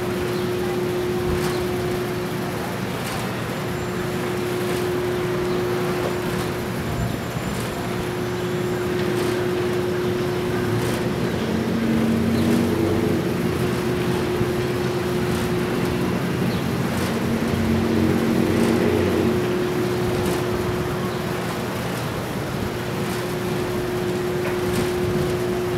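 City traffic noise with a constant steady hum, swelling as a vehicle passes about twelve seconds in and again a few seconds later.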